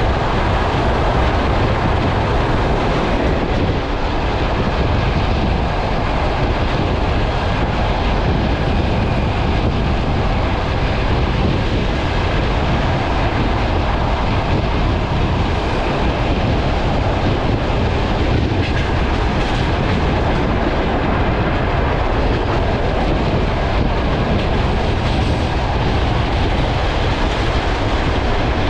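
DC electric commuter train running at speed, heard from a carriage window: a steady, loud rumble and hiss of wheels on rails. For the first few seconds an oncoming ET2M electric train passes close alongside.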